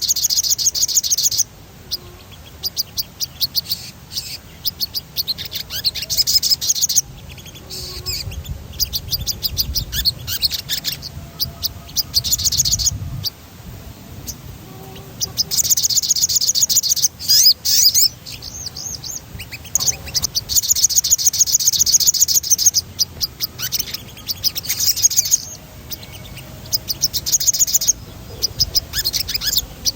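A sogon sunbird singing its rolling song: high, rapid trills a second or two long, repeated many times with short pauses between them.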